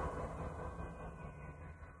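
Closing seconds of a dub reggae track fading out, its low bass notes lingering as the sound dies away.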